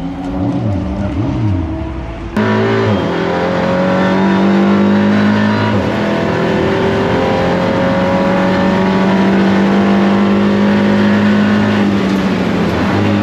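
Audi RS 3 LMS TCR race car's 2.0 TFSI turbocharged four-cylinder engine. It is first heard from trackside, revving up and down. After a sudden jump in loudness about two seconds in, it is heard from inside the cockpit, pulling hard with its pitch slowly climbing, then easing off slightly near the end.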